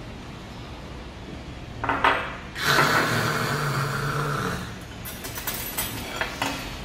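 After a sip of makgeolli, a short cry and then a long drawn-out vocal exclamation of relish at the drink. Near the end comes a run of sharp clicks and clinks from tableware and kitchen scissors at the plate.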